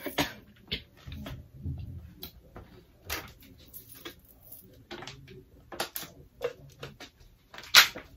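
Plastic water bottle being handled, making scattered clicks and knocks, the loudest near the end.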